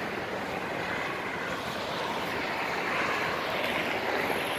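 Road traffic noise, a steady hiss of passing vehicles that swells as one goes by about halfway through, then eases.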